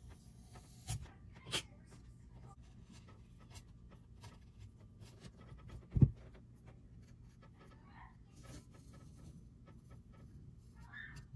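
Paper backing rustling and crackling as it is peeled and handled around an aluminium RC car chassis plate, with many light clicks and one loud thud about six seconds in.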